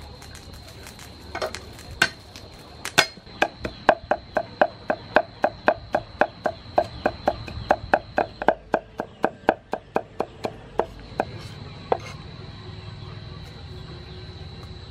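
Cleaver chopping garlic on a thick round wooden chopping block: a few single strikes, then a fast, even run of chops, about three a second, for some seven seconds, and one last strike near the end.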